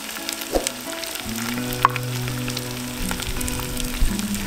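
Diced onion sizzling in hot oil in a cast-iron pot, a steady crackle with occasional sharper pops, under background music with held notes.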